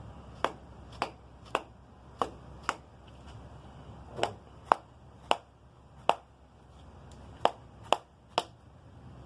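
Dead blow hammer tapping the end of a wooden hammer handle a dozen or so times, about two taps a second with a short pause about three seconds in, driving the handle home into the sheet metal hammer's head to set it.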